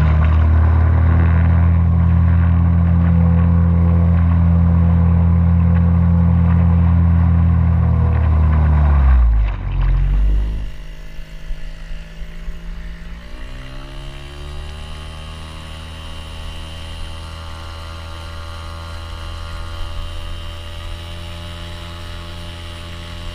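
Yamaha 2 hp outboard motor on a kayak running at speed with a steady drone. About ten seconds in, it drops lower in pitch and quieter, then the engine note rises and holds steady.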